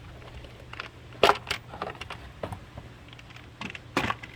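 Scattered clicks and knocks of the air intake ducting being worked loose and pulled out by hand, the loudest about a second in, over a low steady hum.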